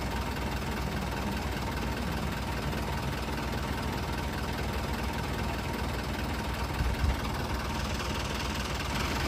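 Flatbed tow truck's engine idling steadily, a low even rumble.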